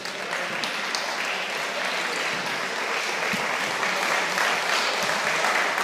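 Applause: many hands clapping together, breaking out at the start and holding steady.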